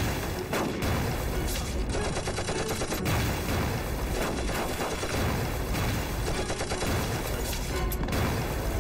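Dense battle gunfire, volleys of rifle and machine-gun shots going off continuously with explosions among them, over dramatic film music.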